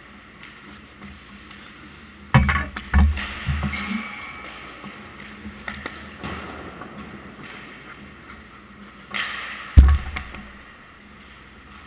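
Ice hockey goaltender's skates scraping the ice close by, with heavy thumps of the pads and gear against the goal near the camera: a quick run of three or four thumps a couple of seconds in, and the loudest single thump near the end after a scraping rush.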